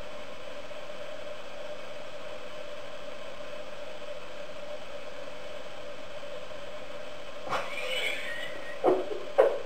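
A steady, even mid-pitched hum. About seven and a half seconds in there is a brief rustle, and near the end a few short, sharp sounds.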